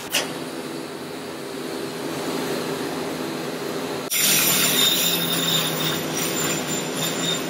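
Arc of a Hobart MIG wire-feed welder, a steady crackling hiss that jumps suddenly louder about four seconds in as a new bead is struck.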